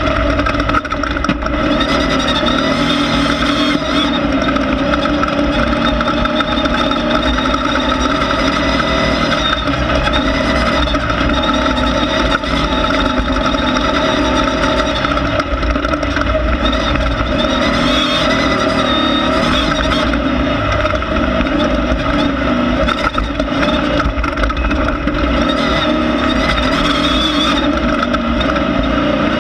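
Class 1600 off-road race car's air-cooled VW 1600cc engine running hard at fairly steady high revs, with frequent knocks and clatter from the car over rough ground.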